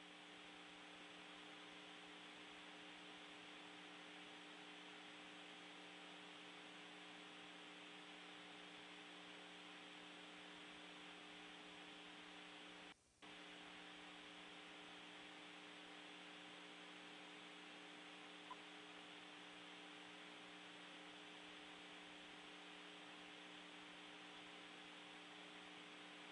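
Faint steady hiss and electrical hum of an open radio communication channel with no one talking, cutting out for a moment about halfway through.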